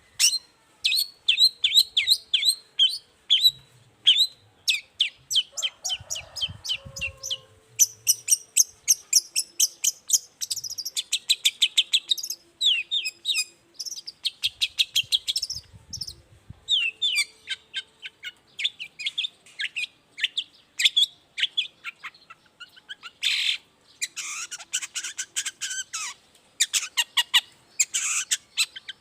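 Long-tailed shrike (cendet) singing: fast runs of sharp, downward-sliding chirps, several a second, with a few harsh rasping notes near the end.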